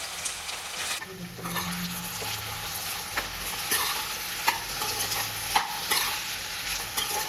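Sliced potatoes frying in hot oil in a kadai, sizzling steadily, while a spatula stirs them with sharp clicks and scrapes against the pan.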